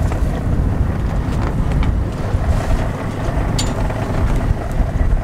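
Boat's twin Yamaha 200 outboard motors running steadily at trolling speed, with wind buffeting the microphone as a heavy low rumble.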